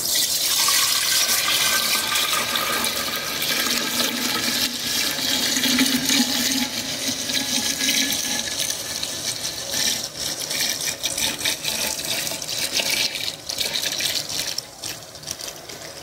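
Spiced wine poured in a thick, continuous stream into a ceramic storage jar, splashing and foaming as it fills. The pour starts abruptly and trails off near the end.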